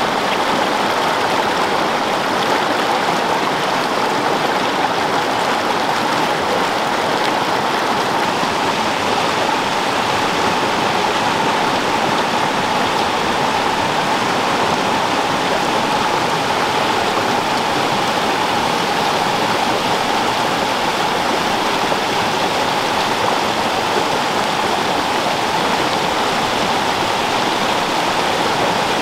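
Fast-flowing stream rushing and churning over rocks and boulders: a steady, unbroken roar of water.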